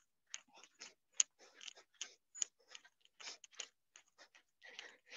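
Faint, irregular light taps and clicks, a few each second, from people exercising with wooden sticks on a gym floor.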